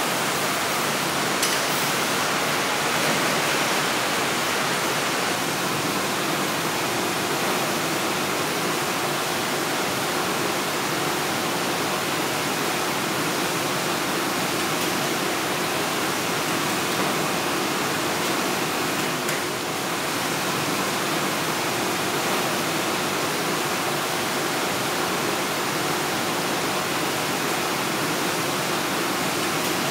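Steady, even rushing noise of factory ventilation and machinery, with a faint steady hum running through it.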